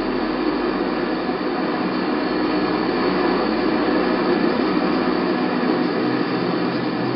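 Steady rushing roar of jet aircraft engines in flight, swelling slightly midway.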